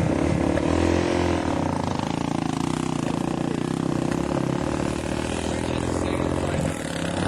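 Dodge Neon's four-cylinder engine running hard as the car is driven through sand, its pitch rising and falling with the throttle and dipping briefly near the end.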